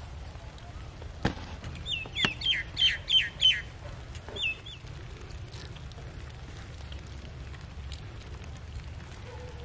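A bird calling outdoors: a quick run of about six high chirps, each sliding down in pitch, about three a second, then two more a second later, over a steady low background rumble.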